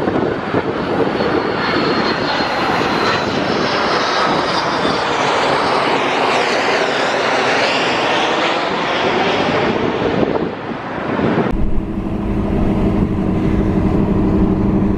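Jet airliner passing low overhead on its landing approach: a loud rushing roar with a slow, swirling sweep in its hiss. About eleven seconds in, the roar gives way abruptly to the steady low hum of the car driving.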